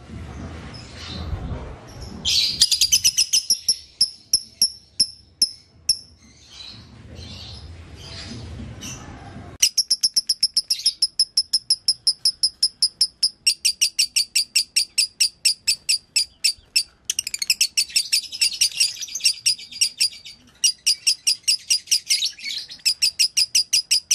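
Fischer's lovebird singing a long run of short, sharp, high chirps repeated about four a second, the rapid continuous 'konslet' song style. A brief run of chirps comes first, then after a pause with a low rumble the chirping resumes about ten seconds in and runs on steadily.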